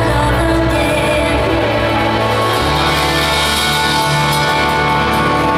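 Live rock band playing an instrumental passage with no singing: guitars, keyboards and drums, the low notes moving to a new chord about two and a half seconds in.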